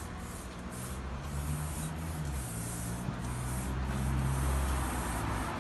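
Aerosol spray paint can hissing in a run of short bursts as paint is sprayed onto a wall. A low steady hum lies beneath it and grows louder about four seconds in.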